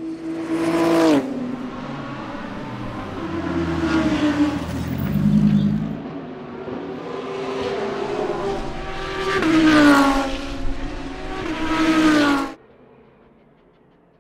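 GT race cars passing at speed, one after another, each engine note rising and then dropping in pitch as it goes by. The engine sound cuts off abruptly near the end.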